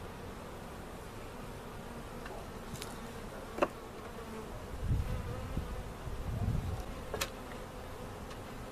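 Swarm of honey bees buzzing steadily around a hive, with a faint even hum. Two sharp clicks, the first the loudest sound, and a few low thuds from handling equipment break in partway through.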